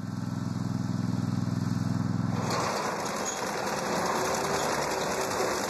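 Aebi motor mower engine running steadily with an even hum. About two and a half seconds in, the sound changes to a noisier engine-and-machinery clatter from an Aebi TerraTrac pulling a belt rake through hay.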